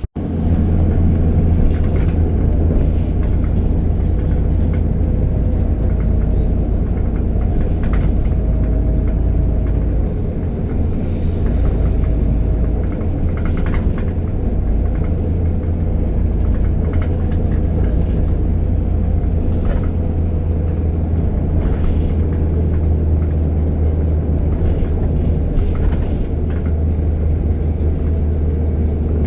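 City bus engine running, a steady low rumble with a constant low hum.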